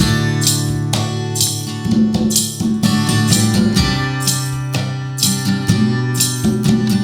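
A live band playing an instrumental passage: strummed guitar over a drum kit with cymbal hits, no singing.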